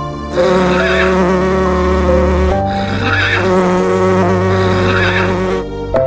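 A horse whinnying in two long stretches with a brief break between them, over steady background music.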